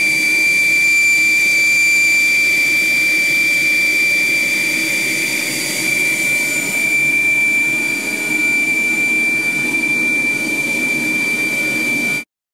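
Air flow on an aeroacoustic test bench rushing over a 2D cavity, which whistles with a loud, steady, high tone over the hiss of the flow. This is the cavity tone that drives the energy harvester's piezoelectric membrane. The pitch shifts slightly about six seconds in, and the sound cuts off suddenly near the end.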